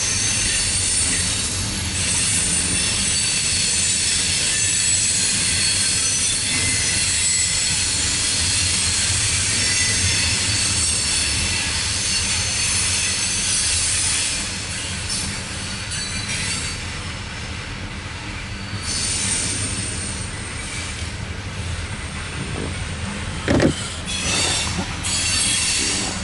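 Cars of a loaded CSX coal train rolling past: a steady low rumble of wheels on rail with a high-pitched wheel squeal over it. A short rising squeak stands out near the end.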